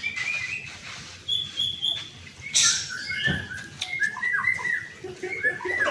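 Songbird chirping in many short repeated notes, with a quick rustling rush about two and a half seconds in.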